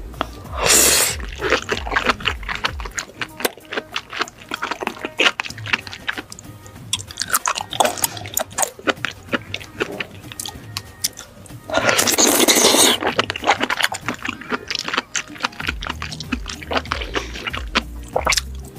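Close-miked wet chewing of raw seafood coated in sea grapes: many small crunchy, squishy clicks, with two longer, louder wet slurping bursts about a second in and about twelve seconds in. Background music with a low bass line is heard at the start and again near the end.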